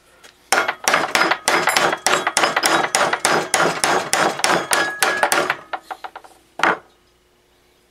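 Rapid hammer blows on a stuck steel pulley on the crankshaft of a Tecumseh HS40 small engine, about four or five metal strikes a second for about five seconds, with a light ring. One last single blow follows near the end. The blows are driving the seized pulley along the shaft after the gear puller's threads gave out.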